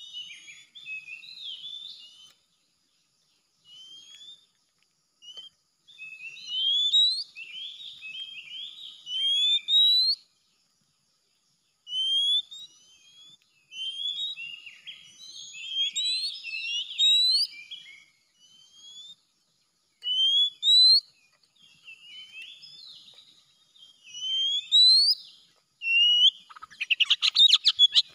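Oriental magpie-robin (kacer) singing: loud phrases of rising whistled notes mixed with varied chattering, coming in bursts with short pauses. Near the end comes a fast, harsh rattle.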